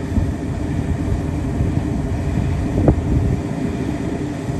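Low, unsteady rumble of wind buffeting the microphone over the running engine of an excavator working at the site, with a single sharp click about three seconds in.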